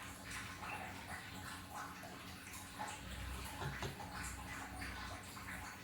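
Close, wet mouth sounds of someone chewing fried fish: many small irregular smacks and clicks.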